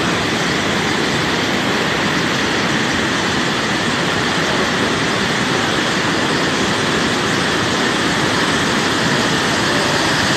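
Floodwater rushing through a river headworks: a loud, steady rush of muddy river water in spate.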